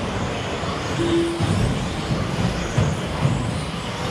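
Electric 1/10-scale RC stadium trucks with 13.5-turn brushless motors racing on a carpet track: a dense mix of motor whines rising as they accelerate and tyres rumbling on the carpet. A brief steady tone sounds about a second in.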